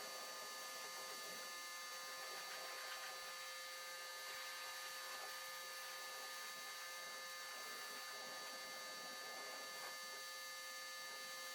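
Pressure washer running steadily: a constant hiss with a high, even whine over it.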